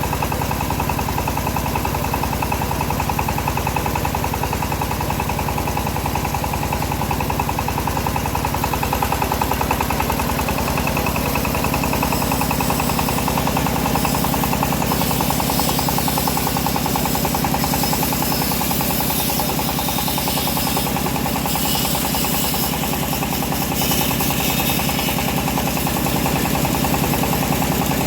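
Homemade bandsaw sawmill running steadily under engine power while its blade cuts a teak log. A hiss of the blade in the wood grows stronger from about halfway through.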